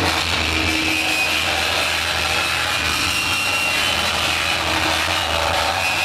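Live harsh noise electronics from analog gear and a cassette deck run through a mixer: a loud, steady wall of gritty hiss over a low hum, with a few thin high tones coming and going.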